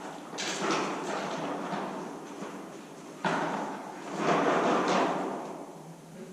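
Small toy wagon rattling and rolling across a hard floor as a dog pulls it, with a clattering surge about a third of a second in and another, louder, about three seconds in.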